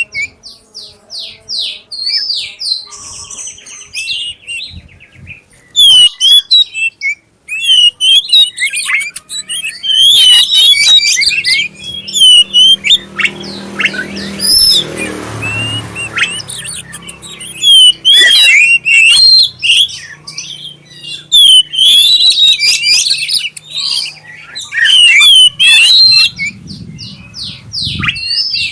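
Oriental magpie-robin of the black-breasted form singing loudly: a varied run of clear whistles, quick slurred notes and fast trills, used as a lure song to set other magpie-robins singing. A low rumbling noise rises briefly in the middle.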